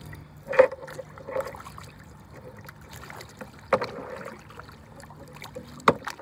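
Kayak being paddled: paddle blades splashing and dripping water, with three sharp knocks spread through the stroke.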